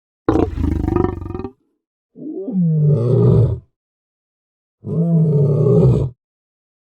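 Three separate lion roars, each about a second and a half long, with silent gaps between them. The first has a rapid rattling pulse; the other two rise and then fall in pitch.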